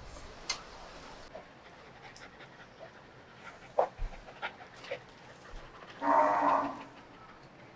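An animal's call, pitched and lasting about a second, about six seconds in, with scattered light clicks and knocks before it.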